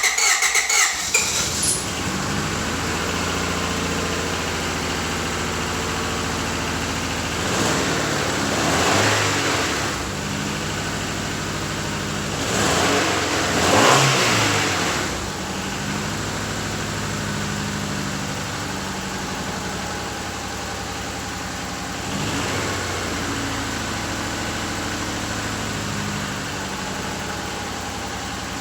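1997 Honda Odyssey engine idling steadily just after starting, with its rocker-arm valve clearances freshly adjusted; it is revved up and back down twice, about eight and thirteen seconds in.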